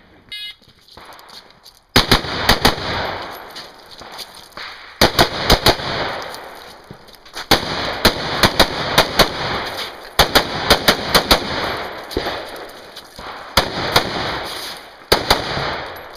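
Rapid semi-automatic fire from a Rainier Arms RUC AR-15-style competition rifle with a 16-inch barrel. Quick strings of sharp shots begin about two seconds in and recur several times, with short pauses between them as the shooter moves from target to target.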